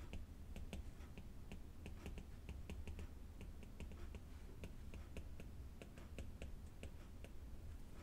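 Faint, quick clicks of a stylus tapping on a tablet screen while handwriting, about three or four a second, over a steady low hum.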